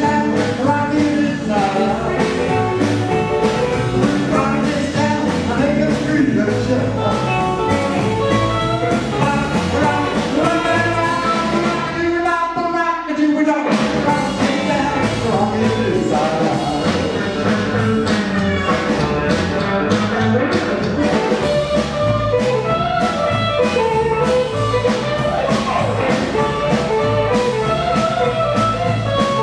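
Rockabilly band playing live, mostly instrumental. About twelve seconds in, the bass and drums drop out briefly while a lead instrument plays alone, then the full band comes back in.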